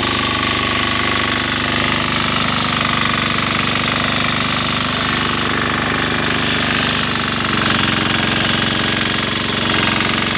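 Engine of a grass-cutting machine running steadily at a constant speed, with a rapid, even firing pulse.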